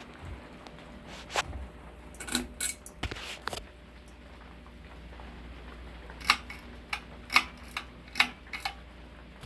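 Moss TF Series ceiling fan running with a steady low motor hum, and a series of light, sharp clicks: a few scattered ones, then a run of about six at roughly half-second intervals.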